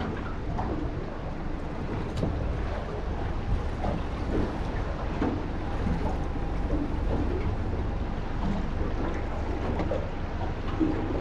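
Wind buffeting the microphone over water lapping around a small boat, a steady low rumble with faint splashes and knocks.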